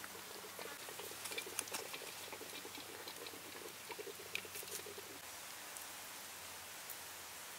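Fast light crackling and pattering from a wok steaming fish over a fire, giving way about five seconds in to a steady soft hiss.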